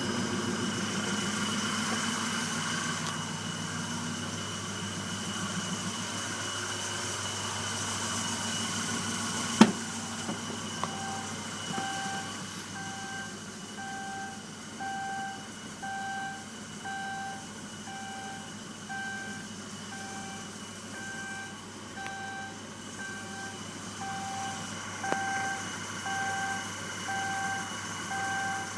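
Kia Sportage 2.0 SOHC engine running steadily with its belt-driven York 210 air compressor. About a third of the way in there is one sharp click and the sound gets quieter. From then on an electronic beep repeats about once a second.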